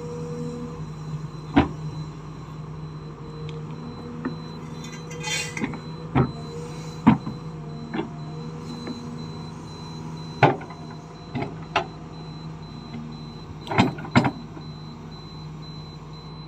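Excavator engine and hydraulics running with a steady hum, broken by about eight sharp metal clanks spread through, as the quick coupler and the attachment knock together.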